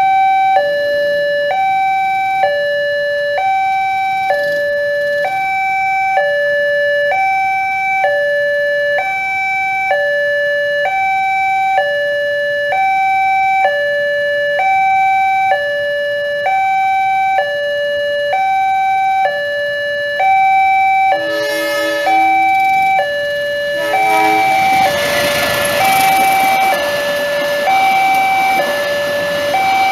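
Electronic level-crossing alarm sounding a continuous two-tone hi-lo signal, each tone under a second long. Near the end a train gives two short horn blasts, then passes over the crossing with a rising rush of wheel and wind noise under the alarm.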